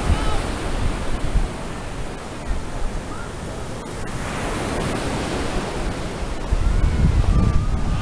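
Ocean surf breaking and washing along the beach, with wind buffeting the microphone in low rumbling gusts at the start and again near the end.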